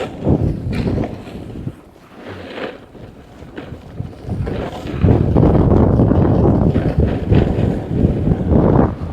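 Wind buffeting the microphone during a snowboard run, with the board sliding and scraping over the snow. The noise eases for a few seconds about two seconds in, then picks up loudly again.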